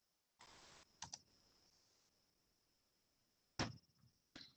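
Near silence broken by a few soft, separate clicks from a computer keyboard and mouse: a pair about a second in, one louder click later, and faint ones near the end.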